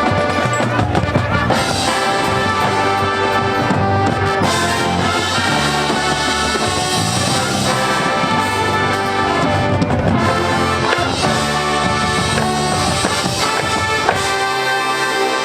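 High school marching band playing, brass-led with strong low brass.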